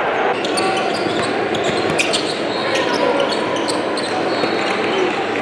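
Live gym sound from a basketball game: a basketball bouncing on a hardwood court in a large echoing hall, with knocks and scuffs from play and crowd voices underneath.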